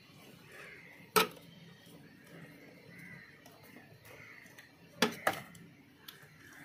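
Screwdriver and plastic connectors clicking against a Maruti Ertiga's engine-bay fuse box as wiring is pushed into it: one sharp click about a second in, then two more close together about five seconds in.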